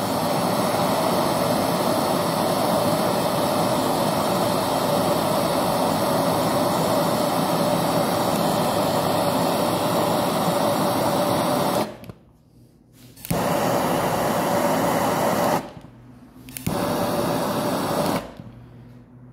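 Hand torch made for MAPP gas, a Hotery HZ-8389, burning bottled LPG, its flame running with a steady hissing rush while it heats a copper-to-aluminium tube joint for brazing. The hiss cuts out twice for about a second, a little after halfway and again a few seconds later, and falls away near the end.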